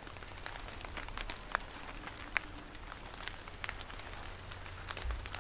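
Scattered, irregular drips of rainwater falling onto wet leaves and the woods floor just after the rain has let up, over a low steady rumble.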